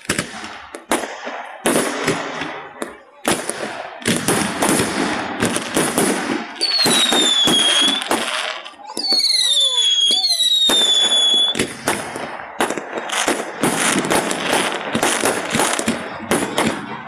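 Fireworks display: a rapid run of bangs and crackle from bursting aerial shells, through an over-compressed phone microphone. About midway come several high whistles that fall in pitch, from whistling fireworks, overlapping one another.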